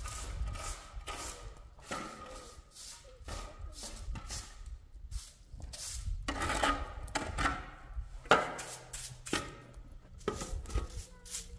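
Short straw broom sweeping dirt across a concrete doorstep into a metal shovel: a run of irregular brushing strokes, with one sharp knock about two-thirds of the way through.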